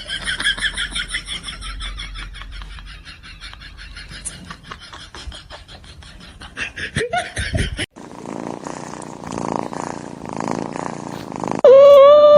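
Cat sounds across several short clips: a long run of rapid, rhythmic vocal pulses, a brief rising cry, then a loud, drawn-out meow near the end.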